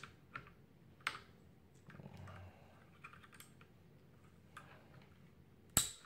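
Scattered plastic clicks and taps as a keycap puller is fitted over a keycap on a TOMOKO 87-key mechanical keyboard, with one sharp, louder click near the end.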